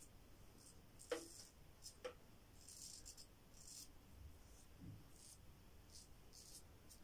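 Adjustable double-edge safety razor (Yaqi Final Cut with a Treet Platinum blade) scraping through lathered stubble in short strokes, a faint rasp repeated about twice a second. Two small clicks come about one and two seconds in.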